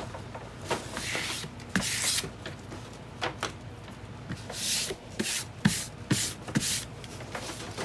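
An old book's spine being worked apart by hand: paper and dried binding glue rustling and scraping in irregular bursts, with scattered small clicks and knocks.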